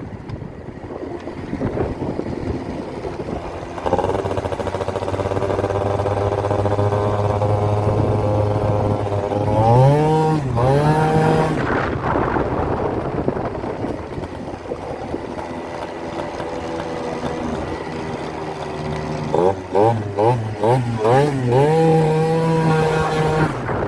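Two-stroke scooter engine with a 70cc DR big-bore cylinder kit on a test ride. It holds a steady speed, revs up and drops back about ten seconds in, then gives a run of quick throttle blips near the end before holding higher revs.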